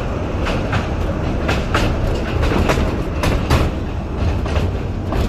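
Small museum joy train rolling along its track: a steady low rumble, with the wheels clicking over the rail joints, often two clicks close together.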